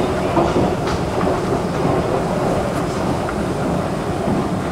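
A metro station escalator running with a steady rumble, with a few faint clicks.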